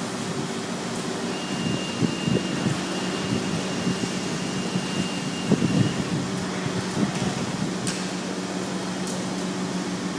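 Strong wind blowing, with uneven gusts and a steady low hum underneath. A thin high whistle sounds from about a second and a half in until about six seconds.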